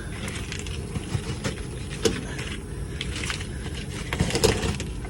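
Steady low rumble of a running downflow air handler's blower, which is pulling the filter down into itself. Sharp knocks and scrapes come about two seconds in and again near the end.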